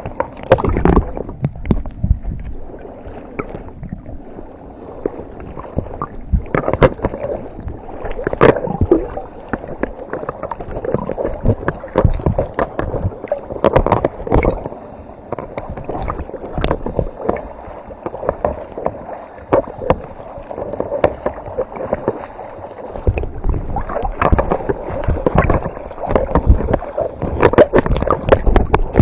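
Sea water sloshing, gurgling and splashing around a half-submerged camera housing, with irregular knocks, sounding muffled as the microphone dips in and out of the water.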